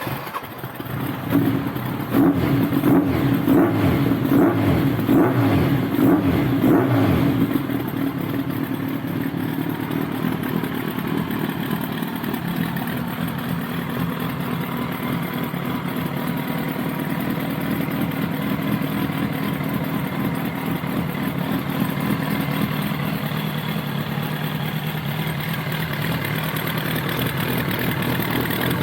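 Kawasaki Zephyr 1100's air-cooled inline-four, breathing through FCR carburettors and a titanium silencer, revved repeatedly for the first several seconds, then settling to a steady idle.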